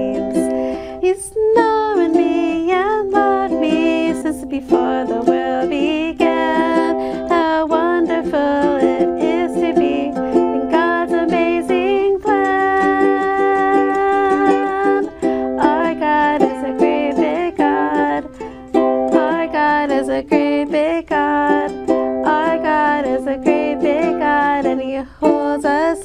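A woman singing a children's worship song, accompanied by a strummed ukulele.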